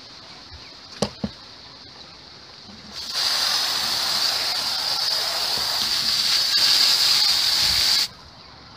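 Garden hose spray nozzle spraying water onto the bedding in a worm bin: a steady hiss that starts about three seconds in and cuts off suddenly about five seconds later. Two light clicks come before it.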